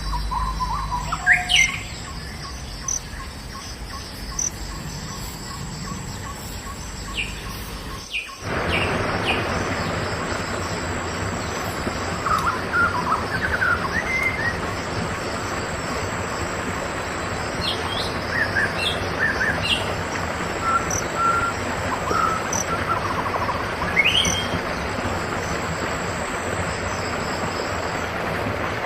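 Forest ambience of several birds chirping and whistling in short scattered calls, over a steady high insect whine. About eight seconds in the background changes abruptly to a louder, even rushing noise, with the bird calls going on over it.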